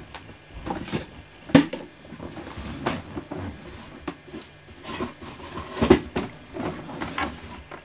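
Scattered knocks and clicks of things being handled and set down, with a sharp knock about a second and a half in and another about six seconds in.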